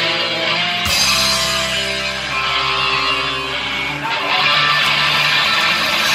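Live rock band playing an instrumental passage led by electric guitar over bass, with the chords changing about a second in and again near four seconds.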